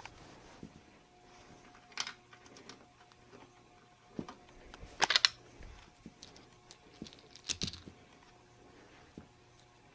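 Plastic computer case parts being handled and fitted back together: scattered clicks, knocks and scrapes, the loudest about five seconds in and again near eight seconds, over a faint steady hum.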